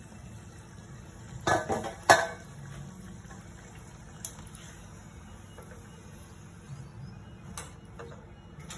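A wooden rolling pin clatters twice onto a steel plate, over the faint steady sizzle of a luchi frying in hot oil in a kadhai.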